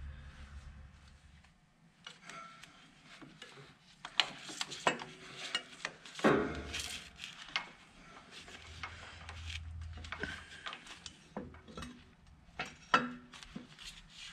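Hand tools on engine metal: a wrench and crow's foot clinking, knocking and scraping at irregular intervals as they are fitted around a coolant tube to loosen a fastener. The loudest clatter comes about six seconds in.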